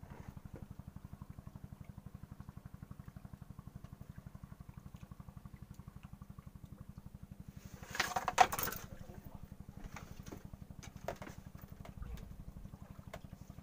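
A small engine running steadily with a fast, even low thudding. About eight seconds in, a brief loud clatter rises over it.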